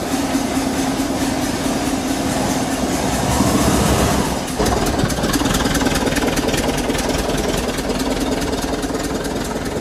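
VW T2 Bay camper van's air-cooled flat-four engine running steadily, with an abrupt change in its sound about halfway through.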